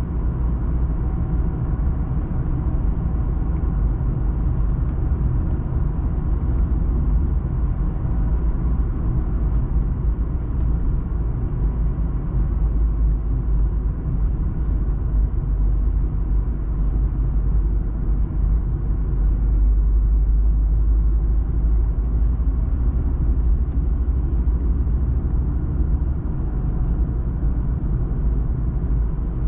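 A car driving along a road, heard from inside the cabin: a steady low rumble of engine and tyre noise that swells slightly about two-thirds of the way in.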